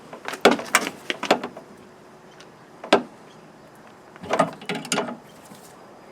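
Clicks and knocks of a tool working at the rear door handle and lock mechanism of a 1988 Renault Extra van. A quick cluster of clicks comes in the first second and a half, then a single knock about three seconds in, and another cluster of clicks around four to five seconds.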